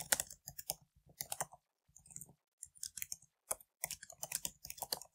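Typing on a computer keyboard: quick, irregular key clicks in short runs with brief pauses between them.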